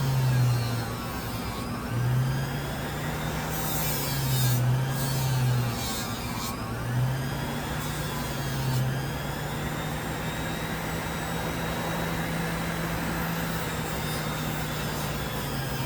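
Central Machinery bench grinder with a fiber wheel running, its motor hum dipping in pitch several times under load as metal is worked against the wheel. A hiss of grinding contact comes through about four to six seconds in.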